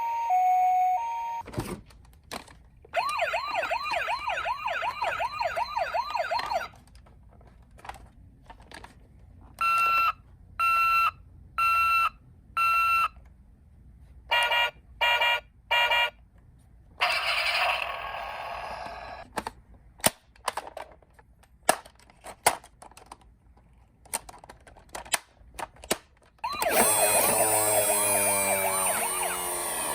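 Toy ambulance sirens going off one after another. First a two-tone hi-lo siren, then a fast wavering wail, then a run of evenly spaced beeps and a quicker burst of beeps, and near the end a loud wail sweeping up and down, with short clicks in the gaps between them.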